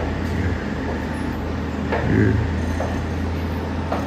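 A motor running with a steady low hum, with faint voices in the background.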